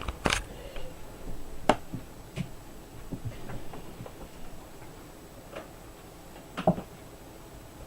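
Scattered light clicks and taps of laptop parts being handled, about six separate clicks several seconds apart, the sharpest about two seconds in.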